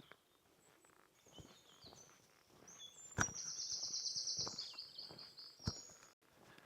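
A small songbird singing, with high quick notes building into a loud, fast trill about three seconds in that runs for nearly three seconds. Two sharp clicks sound during the song.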